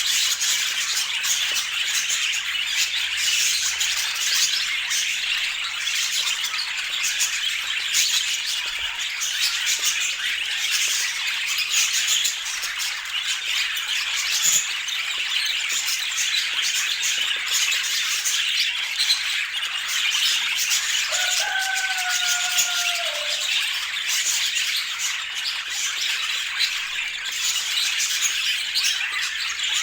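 Pet budgerigars chattering without a break, a dense run of short rapid calls. One longer, steadier call stands out about two-thirds of the way through.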